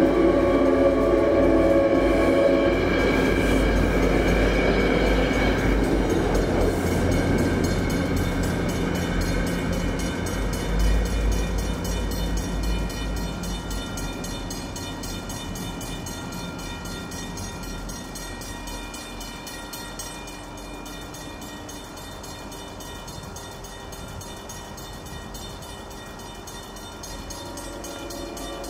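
A Metro-North test train (EMD GP40-3H locomotive with three Shoreliner coaches) passing at speed. Its horn sounds a steady multi-note chord for the crossing and stops about three seconds in. The rumble of wheels on the rails follows, then fades away over about twenty seconds as the train recedes.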